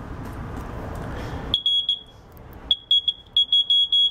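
Multimeter continuity beeper sounding through a repaired microwave-oven fuse: a high-pitched beep that stutters in quick pulses as the test probes touch the fuse ends, showing the fuse conducts again. Before it, a steady rushing noise cuts off suddenly about a second and a half in.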